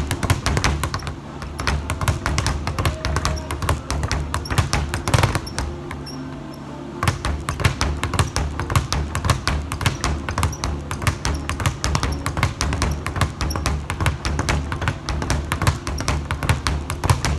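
Speed bag being punched in fast combinations, rattling against its wooden rebound platform in a quick, steady run of strikes, stopping for a moment about a third of the way in before picking up again.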